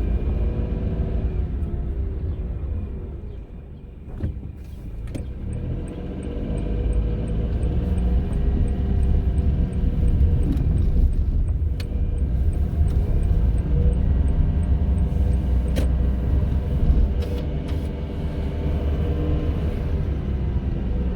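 Honda N-ONE kei car's 660 cc three-cylinder engine and road rumble while driving. The engine note falls as the car slows, then rises again as it pulls away and runs on. Through the middle there is a light, even ticking about three times a second for roughly ten seconds.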